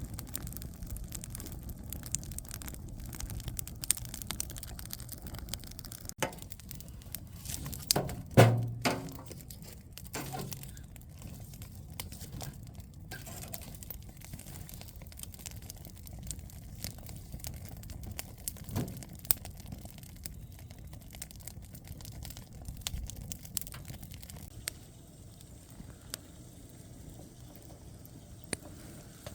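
Wood fire crackling, with irregular sharp pops over a low steady rumble, and one brief, louder low sound about eight seconds in.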